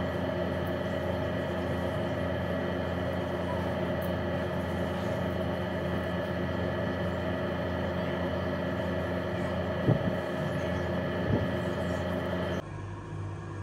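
A steady machine hum with several pitched tones, cutting off suddenly near the end and giving way to a quieter hum, with a couple of soft knocks shortly before.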